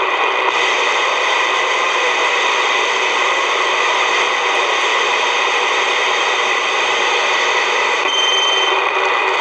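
Dynascan-built base-station CB radio hissing with steady open-channel static while tuned to channel 6 during skip, between transmissions. A short, thin high whistle comes in about eight seconds in.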